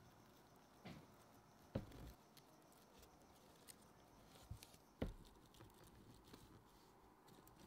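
Quiet handling sounds of planting in a terrarium with tweezers and fingers: a few soft taps and small clicks, the two sharpest about two and five seconds in.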